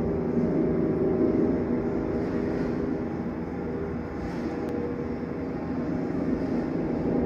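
A steady mechanical drone with a few held tones, easing off a little around the middle and building again near the end.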